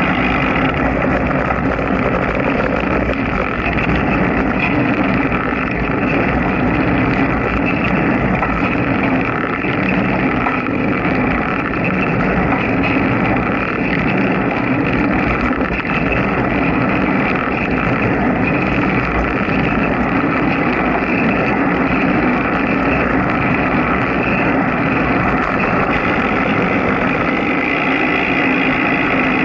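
Steady road-travel noise from a camera mounted on a vehicle descending a mountain road, with a constant hum in it. It stays at the same level while the vehicle slows and speeds up.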